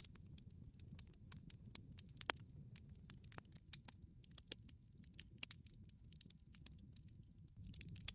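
Campfire crackling softly: irregular small pops and snaps over a low steady rumble of the burning fire.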